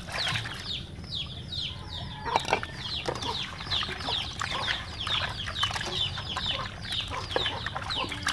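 Chickens, likely chicks, peeping constantly: many short falling cheeps a second. Underneath are wet squishing and a few knocks as squid are kneaded by hand in tea-and-lemon water in a metal basin, loudest about two and a half seconds in.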